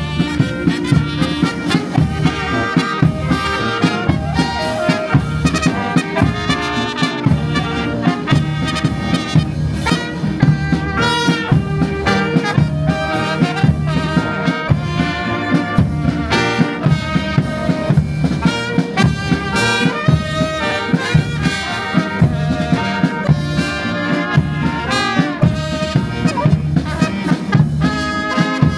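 Brass band playing a march, held brass tones over a steady drum beat of about two strokes a second.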